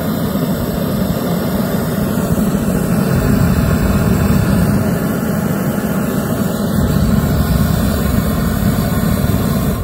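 Homemade venturi propane forge burner of black iron pipe, lit and burning with a loud, steady rushing noise of gas and flame. It cuts off suddenly at the very end as the gas is shut off.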